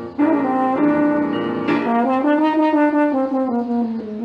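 French horn playing a melodic phrase: several notes climbing to a held note about halfway through, then stepping back down.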